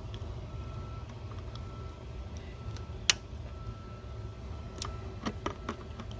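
A few sharp clicks and taps of hand tools on hoses and engine parts under the hood, the loudest about three seconds in, over a steady low rumble.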